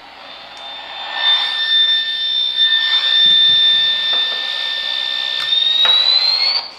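Battery-powered AM radio, tuned to an empty spot at 530 kHz, giving out loud static with a steady high whine picked up from an AC-to-USB power adapter's interference. It swells about a second in, and near the end the whine rises in pitch before the sound drops away suddenly.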